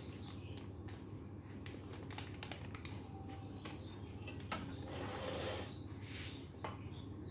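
Faint kitchen handling sounds: scattered light clicks and taps of a spoon against a metal cooking pot as spice powder is spooned onto raw chicken, with a brief crinkly rustle of a plastic packet about five seconds in.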